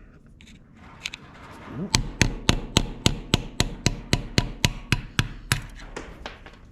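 A hammer striking a screwdriver driven down against a Ford 8N's cylinder sleeve, metal on metal, to knock the sleeve loose from the block. A couple of taps come first, then steady blows at about four a second that fade out near the end.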